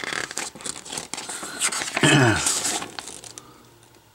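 Comic book pages being turned and handled, a quick run of paper rustles and crinkles. About two seconds in comes a short hum from a person, falling in pitch, the loudest moment, before the rustling dies away.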